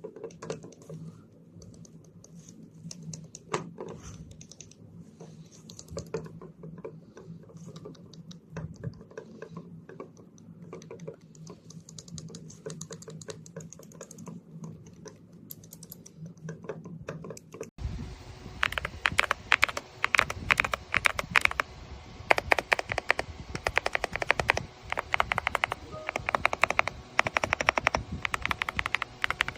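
Mechanical keyboard switches on a 16-key switch tester being pressed over and over, a patter of key clicks over a low steady hum. About two-thirds of the way through, the sound cuts abruptly to louder, faster clicking.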